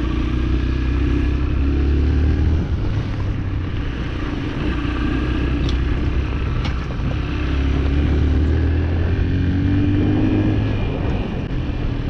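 Farm motorbike engine running while ridden, its note easing off about a quarter of the way in and building up again before settling near the end.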